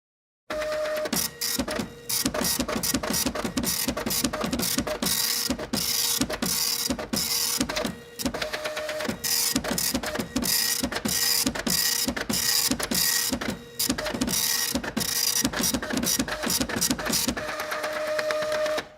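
Printer printing: a fast, dense run of mechanical clicks and strokes over a steady tone, with brief pauses about every six seconds. It starts suddenly about half a second in and stops just before the end.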